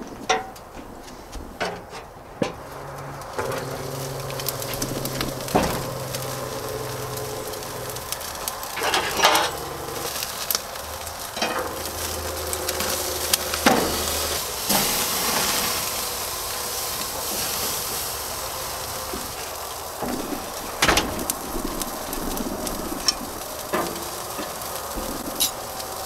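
Beef rib steak sizzling on a charcoal grill's grate, the hiss growing louder a few seconds in. Occasional sharp knocks and scrapes of a metal spatula on the grate as the steak is turned.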